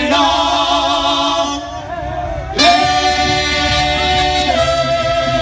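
Mariachi band playing held notes with vibrato. About two and a half seconds in, a loud full chord comes in and is sustained.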